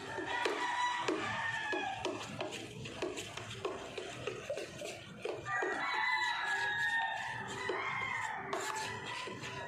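Chickens clucking in a run of short calls, then a rooster crowing in one long call about halfway through.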